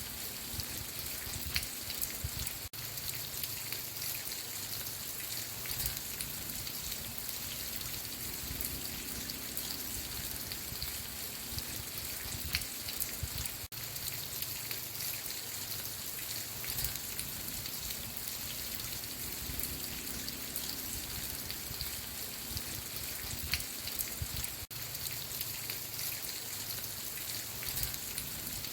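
Steady rain falling, with individual drops ticking on a surface. The sound drops out very briefly about every eleven seconds.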